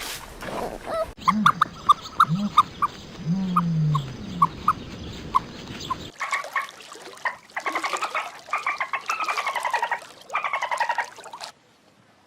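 Animal calls in two edited clips: first short high chirps over a few low sliding calls, then, after a cut about six seconds in, several bursts of rapid pulsed trilling calls.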